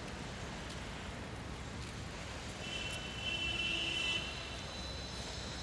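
Steady outdoor city background: the hum of distant road traffic. A brief high-pitched tone rises above it about three seconds in and lasts a little over a second.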